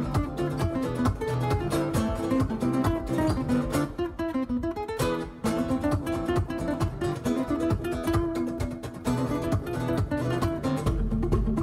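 Background music: fast strummed acoustic guitar in a flamenco style.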